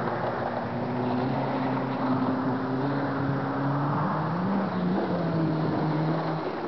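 1980s Honda Civic's four-cylinder engine running at steady revs, its pitch rising briefly a little past halfway.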